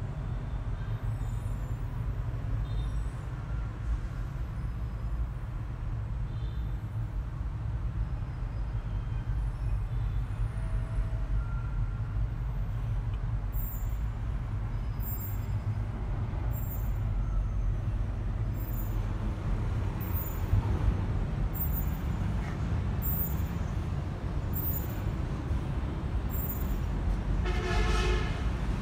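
Steady low rumble of an idling vehicle engine, with a short horn-like toot near the end.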